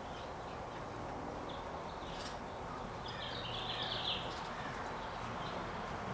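Soft, muffled hoofbeats of a horse cantering on sand arena footing, with birds chirping now and then, most around three to four seconds in.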